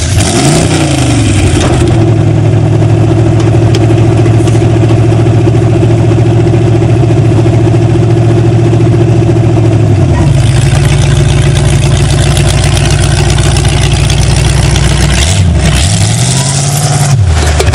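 Demolition derby car's engine running loud and held at high revs, dropping in pitch once about ten seconds in, then briefly letting off and revving back up twice near the end.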